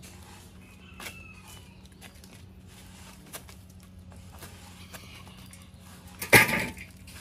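Small knocks and scuffs as a heavy log is handled, then one loud thud about six seconds in as the forked tree-trunk section is dropped onto a metal wheelbarrow.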